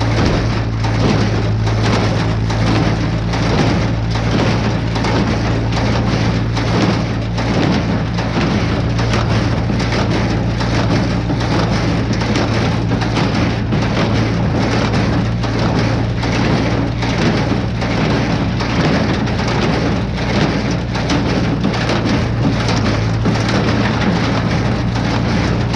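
Tractor running steadily while pulling a small square hay baler at work: a constant engine hum under a dense, rattling clatter.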